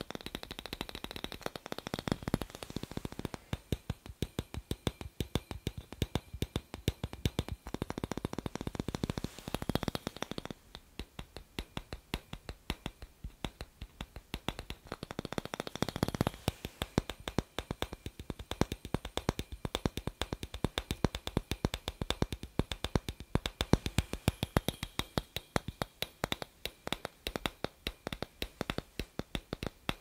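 Fingers tapping fast on a clear glass light bulb: a quick, steady run of light clicks, with a few louder, denser flurries.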